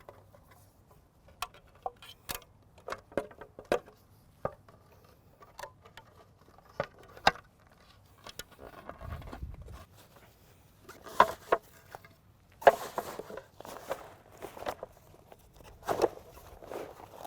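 Satellite terminal equipment being taken apart and handled: irregular clicks and knocks of hardware, with a few louder scraping, rustling handling sounds in the second half.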